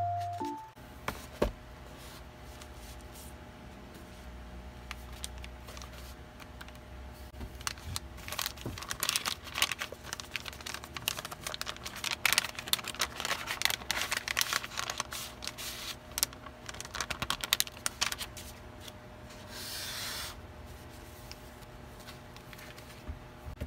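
Paper and plastic packaging rustling and crinkling as a journal kit is handled and unpacked: many quick, close rustles and light taps, with a brief hiss about a second long near the end.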